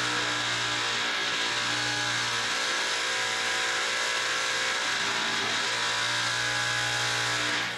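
Loud construction machinery running steadily: a low motor drone with a steady high tone over it. It cuts off sharply just before the end.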